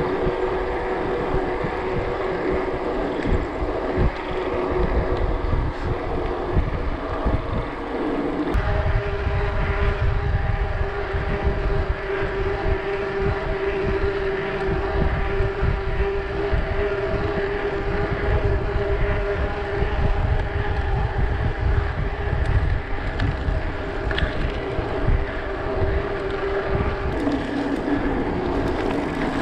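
Wind buffeting an action camera's microphone while riding, a heavy low rumble, under a steady droning hum with overtones. The hum's pitch steps up about a third of the way in and drops again near the end.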